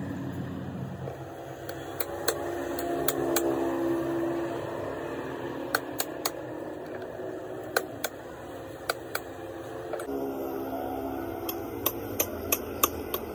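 Irregular sharp taps and clicks, about fifteen in all with a quick run of them near the end, over a steady low hum.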